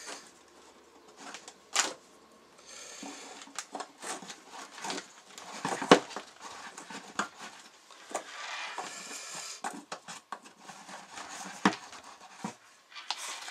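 Hard plastic parts of a Truma Therme water heater being handled as an end fitting is pressed and worked onto the 5-litre tank over its seals: scattered clicks and knocks with stretches of rubbing and scraping. The sharpest knock comes about six seconds in.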